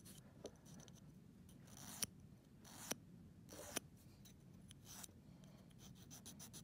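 Glass nail file rasping on a dog's claw in faint, short strokes, filing in one direction along the nail, with the strokes coming quicker near the end.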